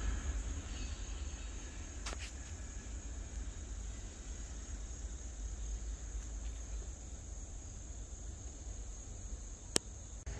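Insects chirring in one steady high tone over a low rumble. There is a faint click about two seconds in and a sharp click near the end.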